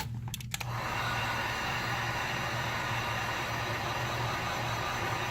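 A few clicks, then a heat gun comes on and blows steadily with a low hum, heating the phone to soften the adhesive holding the screen.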